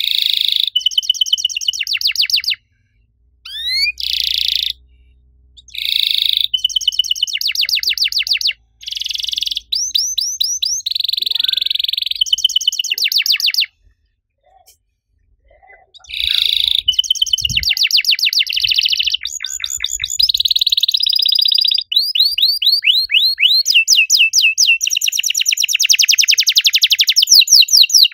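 Domestic canary singing: long, fast trills and rapidly repeated chirps in high, bright phrases, with a pause of about two seconds around the middle.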